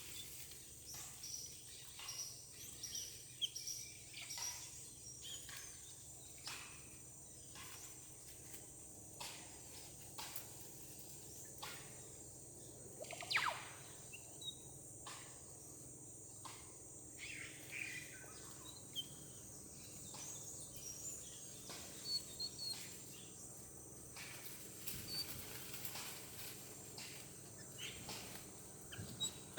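Rainforest ambience: a steady high-pitched insect drone with occasional bird chirps, broken by scattered knocks and clicks, the loudest about thirteen seconds in.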